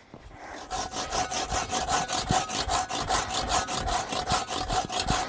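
A hand saw cutting firewood in fast, even back-and-forth strokes, about five or six a second, starting about a second in, with a steady ringing tone over the strokes.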